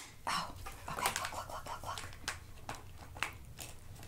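Small toys being handled and set down on a tabletop: scattered light clicks and taps, with some rustling.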